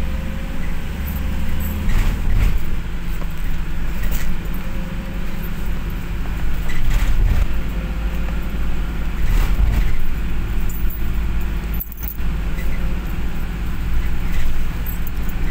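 Inside a moving bus: the steady low rumble of the engine and road, with scattered rattles and clicks.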